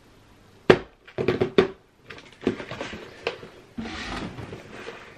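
A few sharp knocks and taps on a cardboard gift box, then scraping and rustling as its lid is worked off.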